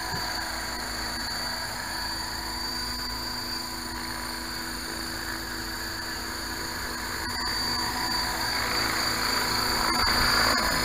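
T-REX 600-size RC helicopter's motor and rotor running while it sits on the ground, a steady hum and whine that grows louder about eight seconds in as the rotor speeds up.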